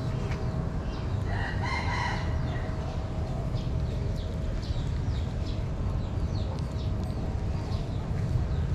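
A rooster crows once in the background about a second in, over a kitten's small crunching clicks as it chews dry kibble. A steady low rumble sits underneath.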